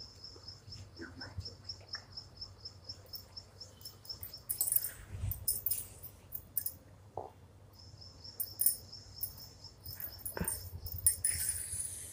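Cloth rustling and brushing as hands smooth a lining piece flat over suit fabric, loudest about halfway through and again near the end, with a soft knock on the floor. A cricket keeps up a steady, fast-pulsing high chirp in the background, pausing in the middle.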